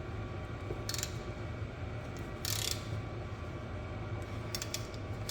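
Rebuilt 3/8-inch Laser Tools ratchet clamped in a vise, worked by hand so the pawl clicks over the gear teeth in a few short bursts: a test that the ratchet now holds instead of skipping teeth.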